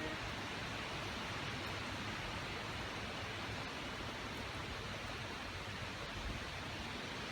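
Steady, even hiss of background noise, with no distinct sounds standing out.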